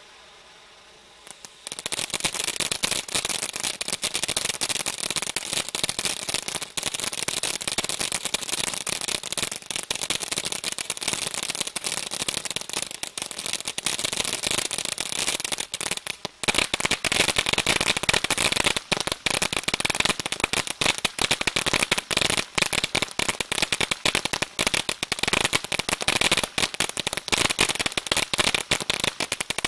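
Humdinger 200 g firework fountain crackling: after a quieter start, a dense stream of rapid crackling pops begins abruptly about two seconds in and keeps going, getting louder about halfway through.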